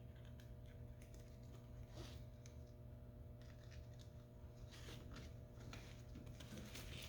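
Near silence: faint scattered clicks and rustles of a nylon strap being fed through a buckle and ring, over a steady low hum.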